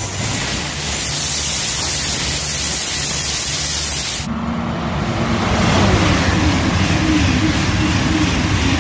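Shinkansen bullet train passing through a station at high speed: a loud, steady rush of noise. About four seconds in it cuts off abruptly to a Eurostar train, a lower rumble with a faint wavering hum.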